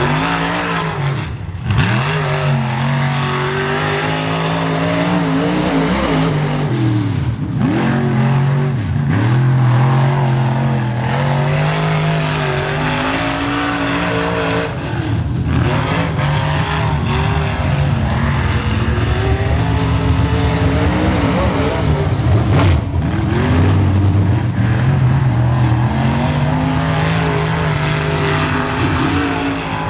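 Limited Late Model dirt race car's V8 engine running hard as the car laps the track, its pitch climbing and falling away over and over as it speeds up and backs off.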